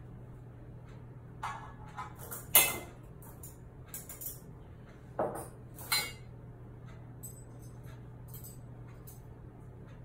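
Metal surgical instruments clinking against each other and against a metal instrument tray as they are laid out in rows. A string of sharp clinks, the loudest about two and a half seconds in, dies down to a few light ticks in the second half, over a steady low hum.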